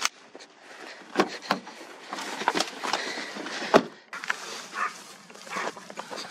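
Rustling and crunching of movement through undergrowth, with several sharp cracks, the loudest a little before four seconds in.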